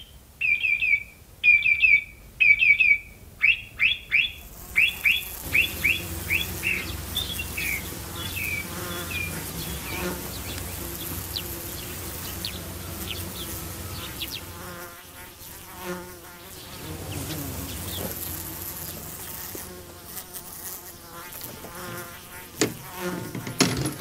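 A bird's quick series of chirps in the first few seconds, slowing and fading out. After that, honeybees buzzing around wooden beehives, a steady hum with louder buzzes now and then.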